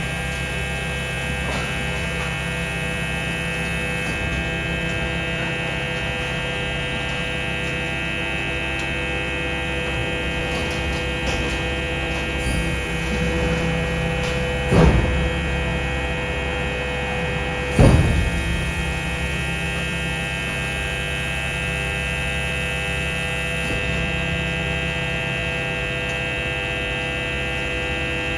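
Steady electric hum made of many tones from the running equipment of a BYD battery-electric garbage truck, with two sharp knocks a few seconds apart just past the middle.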